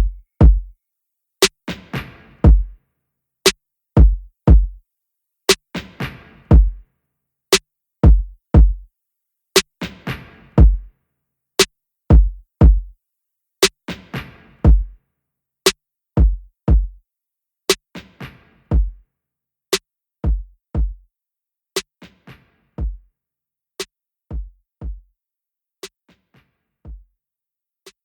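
Background music: a sparse drum-machine beat of deep kicks and sharp snaps, fading out near the end.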